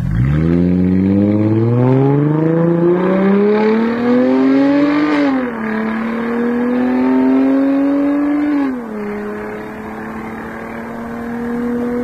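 W221 S350's engine through a RES valved (Valvetronic) cat-back exhaust, accelerating hard from low revs. The note climbs for about five seconds, drops at an upshift, climbs again, then drops at a second upshift and settles into a nearly steady drone.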